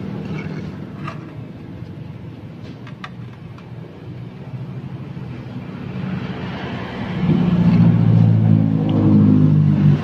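An engine running with a steady low hum that grows much louder about seven seconds in, with a few light clicks in the first few seconds.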